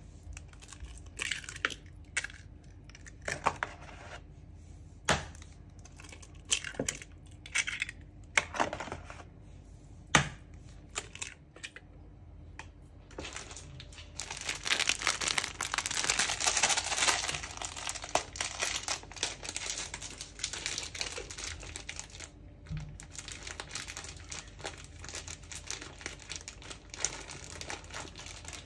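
Eggs cracked one after another against a bowl, each a sharp knock a few seconds apart. Then several seconds of dense rustling and crinkling as powdered sugar is poured into a glass bowl, thinning to faint crackles near the end.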